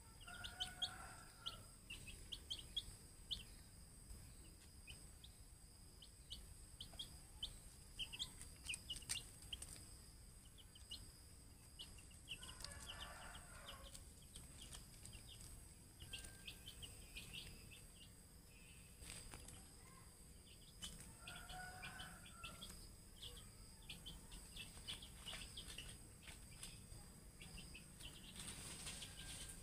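Chicks peeping: many short, high chirps throughout, with a lower adult chicken call three times, near the start, about 13 s in and about 22 s in. Faint steady high tones run underneath.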